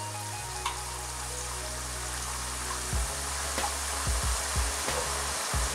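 Raw jackfruit slices deep-frying in a pan of hot oil, sizzling steadily as the oil bubbles just after salted seasoning water has been spooned in. Background music runs under it, with a pulsing bass from about three seconds in.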